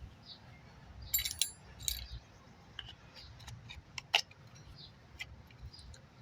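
Scattered light clicks and metallic clinks from chainsaw parts and tools being handled and cleaned, with a jangling cluster of clinks about a second in and a sharper click around four seconds.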